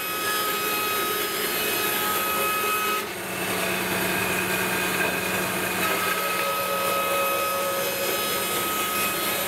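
Band saw running steadily during rip cuts through a glued-up panel of hardwood strips, a constant hum and whine, with a short break about three seconds in.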